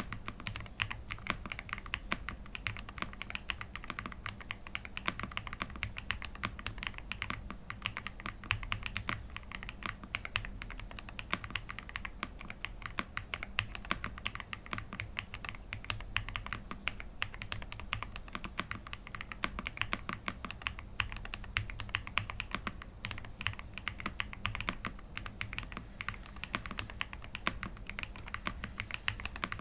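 Ajazz AK870 mechanical keyboard with stock Ajazz gift switches being typed on fast: a steady, rapid stream of keystrokes.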